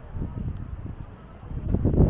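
Wind buffeting the microphone: low, gusty rumbling in uneven pulses, growing louder near the end.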